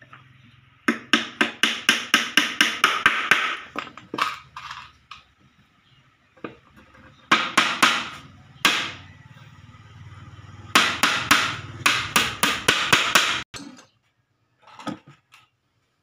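Hammer driving nails into the wooden lid boards of a box: three runs of quick, sharp taps, about four or five a second, with pauses between them.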